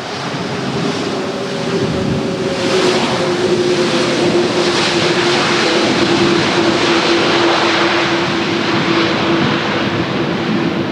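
Jet engines of a heavy airliner: a broad rush of noise that builds over the first few seconds and then holds, with a steady hum in it that slowly sinks in pitch.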